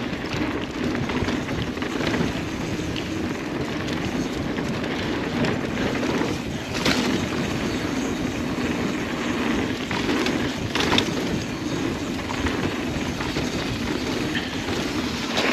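Mountain bike riding fast down a dusty dirt trail: steady tyre roar and chain and frame rattle, with two sharper clacks about seven and eleven seconds in.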